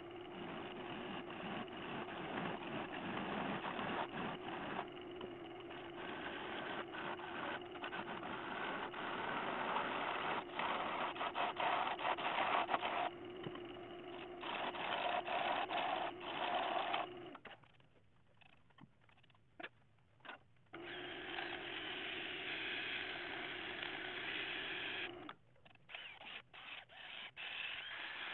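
Wood lathe spinning an ash bowl blank while a bowl gouge cuts into it: a steady machine whirr with a low hum and the scraping hiss of wood being cut. The sound drops out for a few seconds about two-thirds of the way through, comes back, then breaks into short stop-start bursts near the end.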